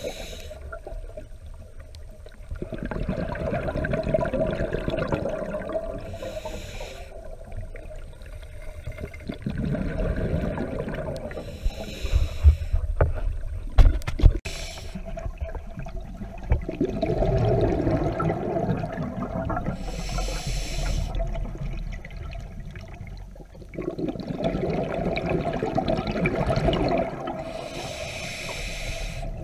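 Scuba diver breathing underwater through a regulator: a short hiss on each inhale, then several seconds of rumbling exhaled bubbles, about four breaths in all. A few sharp knocks about halfway through.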